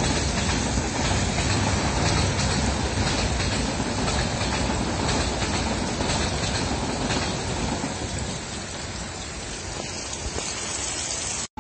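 Subarna Express passenger train running past at speed, its steady rolling noise mixed with the hiss of heavy rain. The train noise eases somewhat after about eight seconds, and the sound cuts off abruptly near the end.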